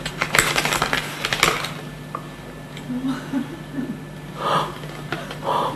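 A paper envelope being handled and torn open, with crisp rustling and crackling in the first second and a half. Then it goes quieter, with a few short breathy sounds near the end.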